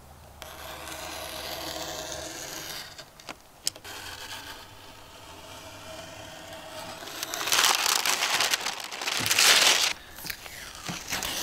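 Kraft masking paper crinkling and tearing as a utility knife cuts it away from a painted cabinet door. The sound is loudest for about two seconds two-thirds of the way through.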